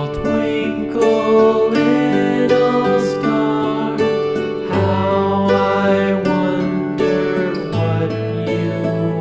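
Background music: a song with plucked guitar and singing.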